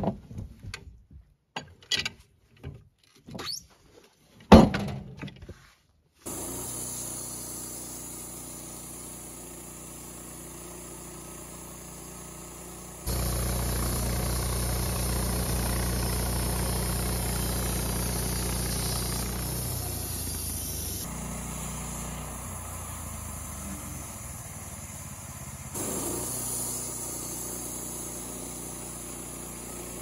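Wood-Mizer LT15 bandsaw mill: first a few sharp knocks as the incense cedar log is turned on the mill bed with a cant hook, then the mill's gasoline engine runs steadily. About thirteen seconds in it grows louder for several seconds as the band blade cuts through the log, eases back, and picks up slightly again near the end.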